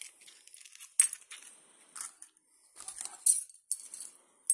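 Light clicks and clinks of eggshell and hands against a glass mixing bowl as the last egg is cracked in: a handful of separate ticks, the sharpest about a second in.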